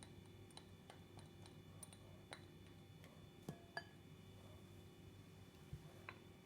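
Near silence broken by a few faint, light clicks and clinks of kitchen utensils against a bowl, scattered irregularly.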